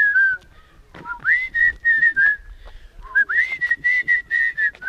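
A person whistling a tune in two phrases, each opening with an upward slide into held notes, with rapid short clicks alongside.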